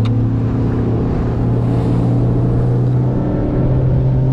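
Bass boat's outboard motor running at speed on the plane: a steady engine drone over the rush of wind and water. The pitch shifts slightly about three seconds in.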